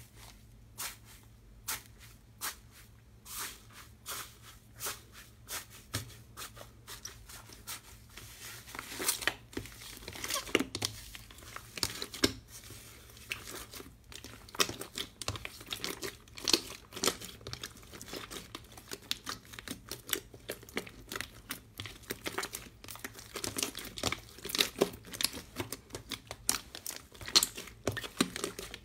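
Hands pressing, kneading and stretching a blue slime in a steel tray, making a dense run of crackles, small pops and tearing sounds that grow busier and louder about eight seconds in.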